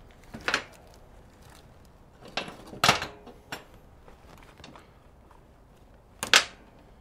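Metal hand tools and sockets clinking and clattering while someone rummages through a toolbox for a socket: a handful of sharp clanks, the loudest about three seconds in and just after six seconds.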